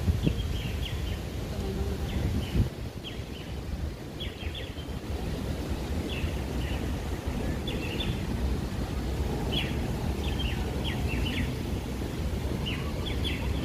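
Small birds chirping, a few short high notes at a time, repeating about once a second over a steady low outdoor rumble.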